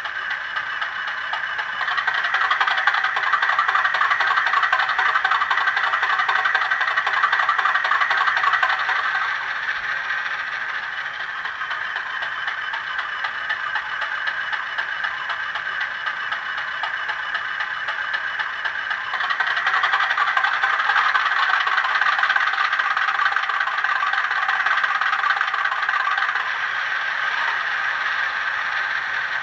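Model Class 50 diesel's engine sound from a Hornby TTS sound decoder, played through the locomotive's small onboard speaker as the stationary engine runs. It grows louder about two seconds in, eases back around nine seconds, and picks up again about twenty seconds in.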